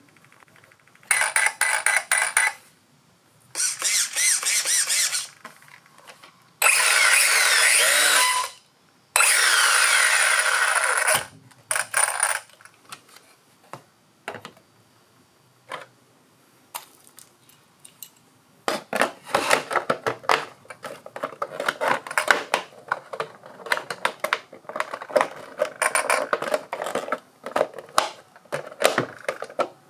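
Brushless motor and drivetrain of a Carson Virus 6S 1:8 RC buggy revved in four short throttle bursts, each a loud rising and falling whine that starts and stops sharply. Then, from about two-thirds of the way in, a long run of plastic clicks and rattles as the body shell is fitted and clipped on.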